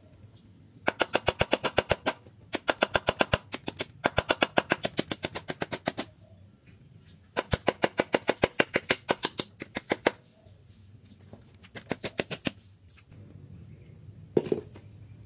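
Ratcheting screwdriver clicking rapidly, about nine or ten clicks a second, in four runs separated by short pauses, as screws are driven through a brass hinge into a wooden gate post. A single knock near the end.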